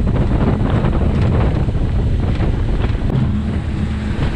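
Boat running across choppy lake water, with heavy wind buffeting the microphone over a steady low rumble and scattered slaps of the hull on the waves.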